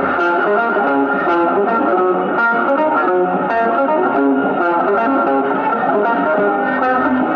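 1950s rock and roll band playing live, electric guitar to the fore over bass.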